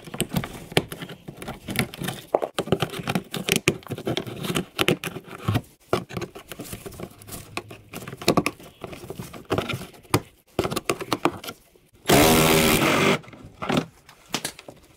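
Plastic push clips on a Ford Fusion's wheel-well liner being pried out with a plastic trim tool: scattered clicks, snaps and scrapes of plastic. About twelve seconds in, a loud, harsh creak lasting about a second as the front bumper cover is pulled free of its side retainer.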